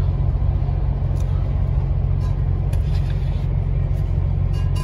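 Truck engine and road rumble heard inside the cab while driving, a steady low drone, with a few faint rattles.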